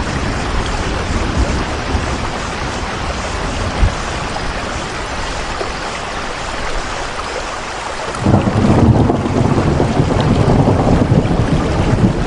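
Steady, heavy rain hiss. About eight seconds in it turns suddenly louder and deeper, a rumble taking over from the hiss.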